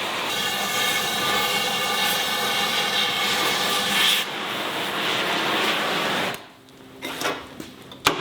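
Cutting torch running with a loud, steady hiss as it cuts steel brackets off the jack, with a whistling tone during the first few seconds. The hiss cuts off abruptly about six seconds in, and a single sharp knock of metal follows near the end.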